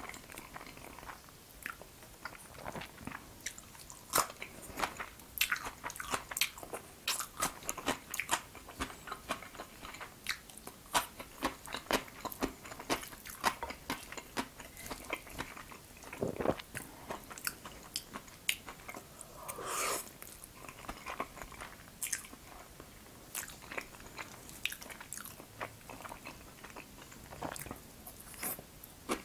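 Close-miked eating sounds of jajangmyeon: steady wet chewing and smacking of black-bean-sauced noodles, with crisp crunches as raw cucumber strips are bitten.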